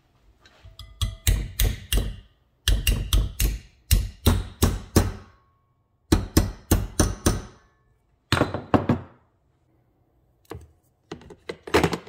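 Hammer blows on a copper pipe hanger strap clamped in a bench vise, bending it over the jaws. Sharp strikes come in several quick bursts of up to about four a second, with short pauses between.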